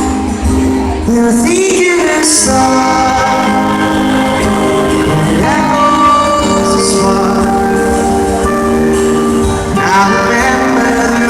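Live pop ballad played over an arena sound system: a man singing long, held notes over band accompaniment, recorded from the audience with poor sound.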